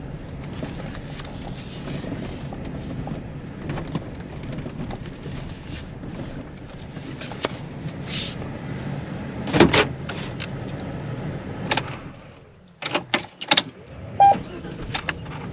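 Chevy driving, heard from inside the cabin: a steady low road and engine rumble with a few knocks, which dies away about twelve seconds in as the vehicle stops. A few clicks and knocks follow, then the dashboard warning chime begins dinging near the end.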